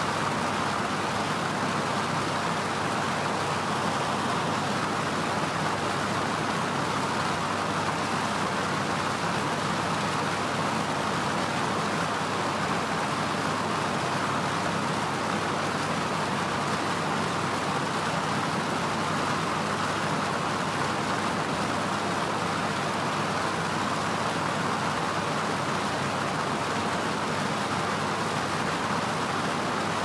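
Fan running at a constant speed: a steady, even whoosh of moving air that does not change, fullest in the middle range.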